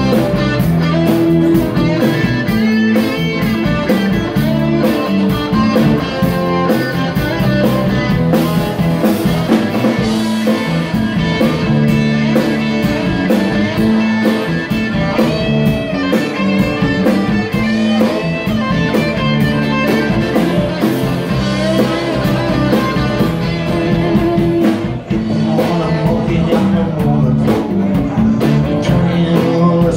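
A live band playing an instrumental blues-rock passage: electric guitar and acoustic guitar over a drum kit that keeps a steady beat.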